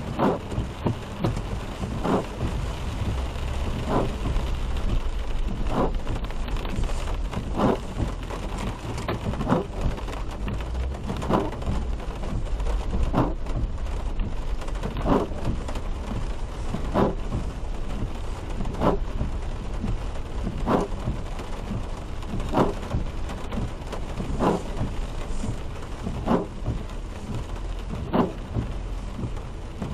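Rain on a moving car, with the windshield wipers sweeping steadily about once every two seconds over a low road rumble.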